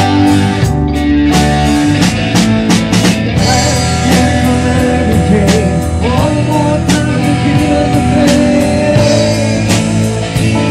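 Live band playing blues-rock: electric guitar over bass and a drum kit keeping a steady beat, with bending guitar or vocal lines in the middle.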